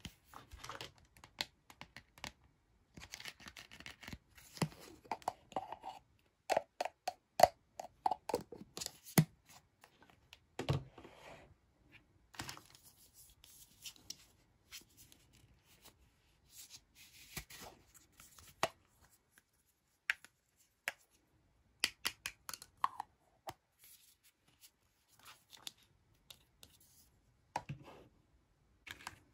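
Hard plastic toy tea set pieces handled by hand: scattered clicks and taps as cups and lids are picked up and set down, with short rubbing and scraping sounds between quiet gaps.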